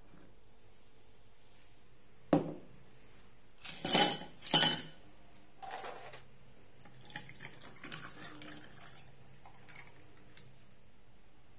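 A single knock on the counter, then two loud clattering bursts of ice cubes dropped into a glass, followed by softer clinks and a little liquid noise as the glass is filled.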